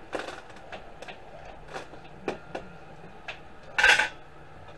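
Small scrap screws and pins from DVD drives clinking against a steel scale platform as they are handled: a few separate light clicks, then a louder rattle near the end as a handful is dropped and spread on the platform.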